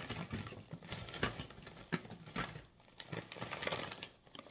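Ruffles Double Crunch ridged potato chips being shaken out of their foil bag onto a paper plate: a dense, irregular clatter of chips hitting the plate, mixed with crinkling of the bag, in two goes with a short pause about two and a half seconds in.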